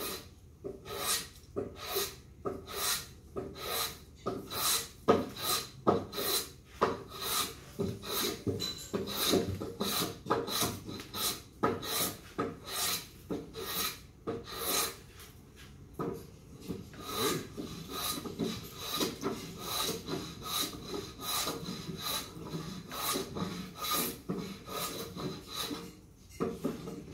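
Hand plane shaving a 6-by-6 timber beam in quick, short strokes, about two a second, each a rasping swish of the blade across the wood. The cuts run through wild grain that changes direction around knots.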